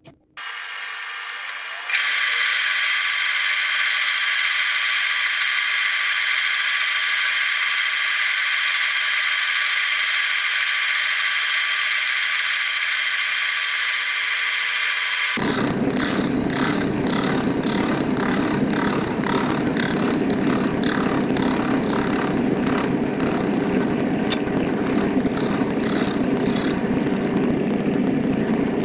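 Milling machine spindle running a shop-made fly-cutter: a steady whine with several held tones, stepping up about two seconds in. About halfway it changes abruptly to a coarser, noisier cutting sound with a regular pulse, as the fly-cutter takes a cut across steel without chatter.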